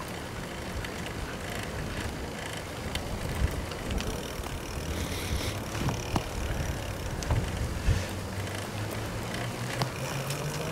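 Giant FastRoad Advanced 1 flat-bar road bike riding along a paved path, heard from its handlebar: steady tyre and wind noise with scattered small clicks and rattles over bumps.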